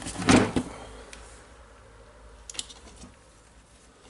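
Parts of an angle grinder handled on a workbench: a short burst of clattering just after the start, then a few faint clicks.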